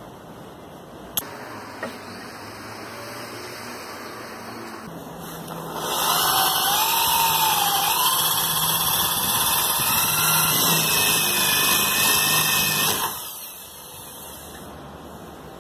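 Electric drill boring a 25 mm spade bit into the end grain of a wooden block, running for about seven seconds with its pitch wavering, then stopping. Two short clicks come about a second in, before the drilling.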